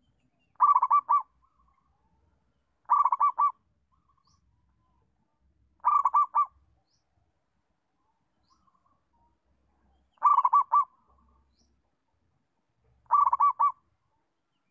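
Zebra dove (perkutut) cooing: five short phrases of quick, rolling notes, spaced a few seconds apart.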